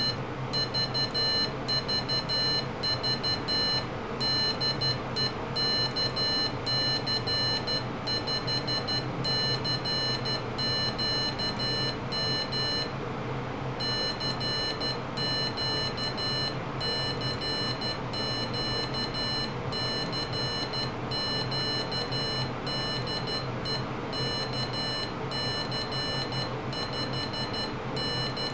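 Piezo buzzer sidetone of an Arduino Morse code keyer, sending high-pitched beeps of Morse code (dits and dahs) as the paddle is keyed, with a short pause about halfway through.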